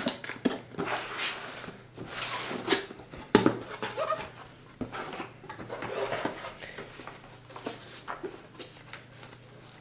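Cardboard box being opened and unpacked by hand: rustling, scraping and light knocks of cardboard and packing material, with a few short squeaks about four seconds in.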